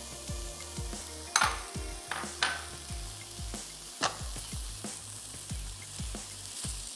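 Silicone spatula stirring and scraping grated cheese into hot vegetable filling in a nonstick wok, with soft knocks and a few sharper scrapes, about three in all. Under it is a light sizzle from the still-hot pan with the flame off.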